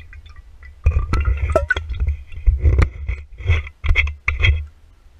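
Glass whiskey bottle with a camera strapped to it, handled and tipped up for a swig: knocks and rubbing against the camera and the glass in a string of loud bursts, with sharp clinks, starting about a second in and stopping shortly before the end.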